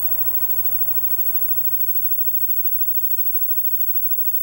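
Steady tape hiss and electrical hum from a relic VHS transfer with no programme sound. About two seconds in, the hiss thins out and a low, buzzing mains hum is left.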